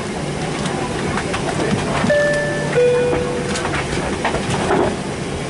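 Steady cabin rumble inside a Boeing 767-400ER on the ground after landing, with the two-tone high-low cabin chime sounding about two seconds in.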